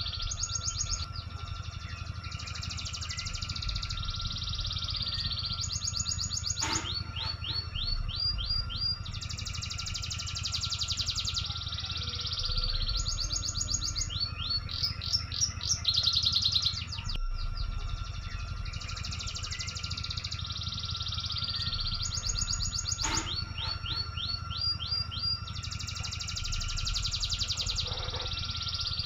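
Forest birds calling: repeated high buzzy trills lasting a second or two, alternating with quick runs of rising chirps, over a steady low hum. The same sequence of calls repeats about every sixteen seconds.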